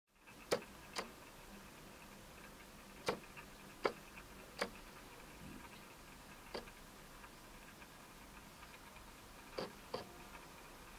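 About eight sharp clicks at irregular intervals, two pairs close together, over a faint steady hum.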